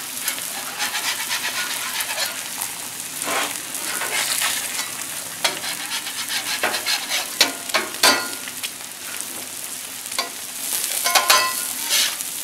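Eggs, onions and potatoes frying on a Blackstone steel flat-top griddle: a steady sizzle with scattered sharp clicks and pops, along with scrapes from a metal spatula on the griddle top.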